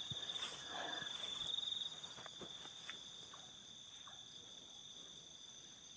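Night insects chirring in one steady, high, pulsing trill. Faint rustling and soft clicks of footsteps through tall grass in the first two seconds, fading as the walker moves away.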